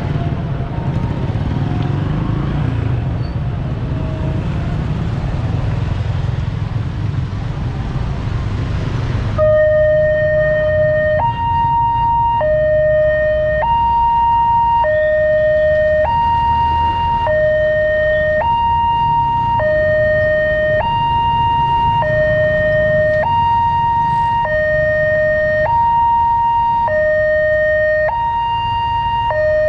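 Motorbike and car traffic running over the crossing, then about a third of the way in the railway level-crossing alarm starts: a loud two-tone alarm alternating a low note and a higher note, each held a little over a second. It is the new melodious alarm typical of Daop 8 Surabaya crossings, and signals an approaching train as the gates close.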